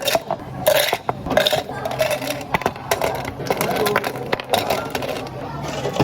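Cups, glassware and utensils clinking and clattering as drinks are made behind a cafe counter, with many sharp knocks throughout and a busy murmur underneath.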